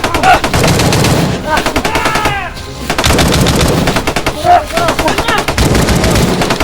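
Rapid automatic gunfire, shots coming many times a second in long bursts, with a short break about two and a half seconds in and voices shouting over it.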